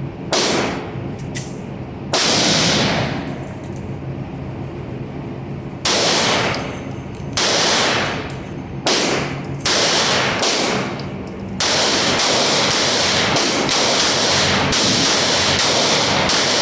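Springfield XD-M semi-automatic pistol firing in an echoing indoor range, each shot ringing off the walls. The shots come singly a second or two apart at first, then fire rapidly for the last several seconds.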